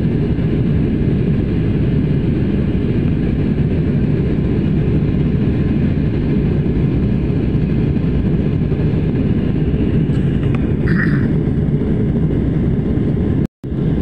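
Steady low rumble of an airliner cabin in flight, the engine and air noise heard from inside the plane, with a brief dropout near the end.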